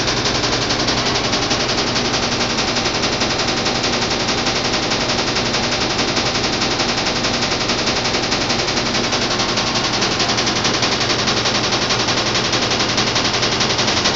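Washing machine running with a loud, rapid, even rattling knock that repeats without a break.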